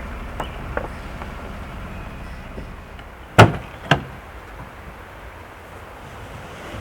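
Two heavy thuds about half a second apart, the first louder, with a few light clicks over a low steady rumble.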